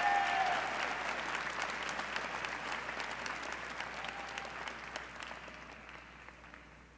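Large theatre audience applauding, with a few cheers right at the start, the clapping dying away steadily toward the end.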